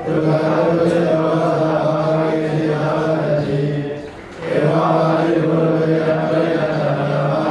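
Buddhist monk chanting into a microphone in long phrases held on a nearly level pitch, with a short break for breath about four seconds in.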